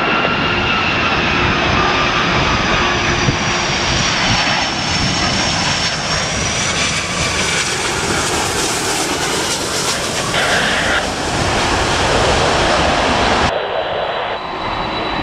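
Icelandair Boeing 757-200 passing low overhead on final approach, its Rolls-Royce RB211 turbofans giving a loud jet rush with high whining tones that slowly glide in pitch. Near the end the sound cuts abruptly to the quieter hum and steady high whine of a Ryanair Boeing 737-800 further out on approach.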